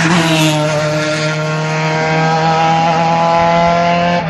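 Citroën C2 rally car's engine running hard at an almost steady pitch as it goes by, a buzzing note with no gear change.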